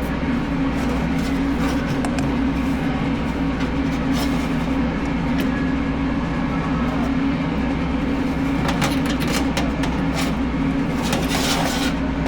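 Steady machine hum with scattered light clicks and rattles.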